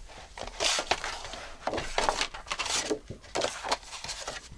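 Paper and card being handled and moved about on a work surface: a string of irregular rustles and light taps.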